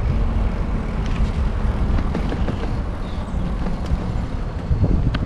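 Steady low wind and road rumble on the microphone while cycling, with a few faint clicks.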